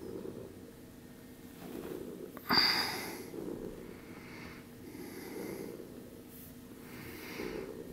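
Soft breathing close to the microphone, about one breath every two seconds. About two and a half seconds in there is one brief louder rustle with a short high squeak in it, as the newborn kittens are handled on the blanket.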